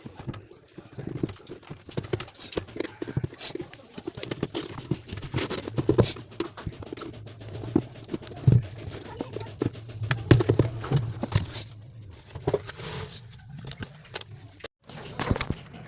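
Irregular knocks, clicks and clatter of hands and tools working on a washing machine's parts, over a low steady hum.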